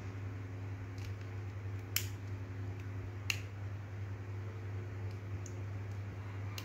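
A few sharp metallic clicks of pliers working small valve parts into the end of a hand grease pump's metal tube, the two loudest about two and three seconds in, over a steady low hum.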